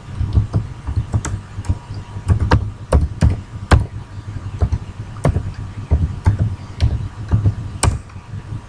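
Computer keyboard being typed on slowly and unevenly, a few sharp key clicks a second.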